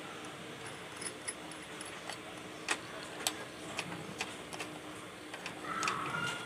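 Scattered small metallic clicks and ticks as fingers turn a nut down on the steel clamp plate over a copper-wound toroidal transformer, tightening it. A thin steady tone comes in near the end.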